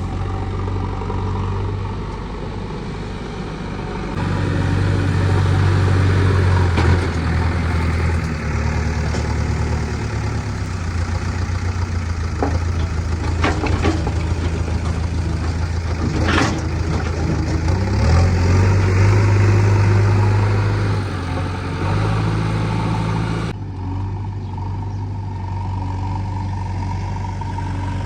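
JCB 3DX backhoe loader's diesel engine working, rising in loudness about four seconds in and again about eighteen seconds in as it takes load, then settling back to a steadier, quieter note near the end. A few sharp knocks come in the middle.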